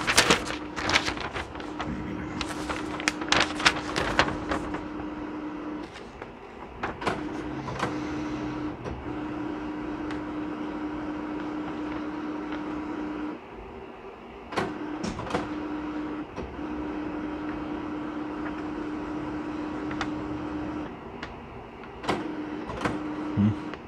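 Canon printer's internal motors running in stretches that stop and start, as it works through its initial setup adjustments. Paper rustling and a few clicks from sheets being handled, mostly in the first few seconds and again about halfway.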